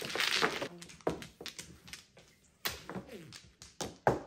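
Mahjong tiles clicking against each other and on the table as they are drawn and discarded: a string of sharp, irregular clacks.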